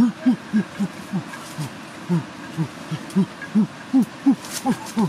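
An animal calling in a rapid, uneven series of short low hoots, about three a second, each one rising and falling in pitch.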